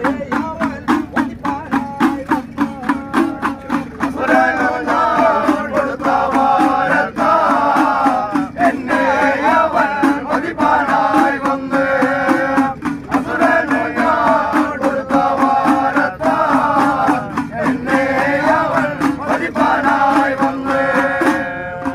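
Ayyappa devotional bhajan: a group of small hand drums beats a fast, even rhythm over a steady drone. About four seconds in, a chorus of men's voices joins in, singing in short repeated phrases.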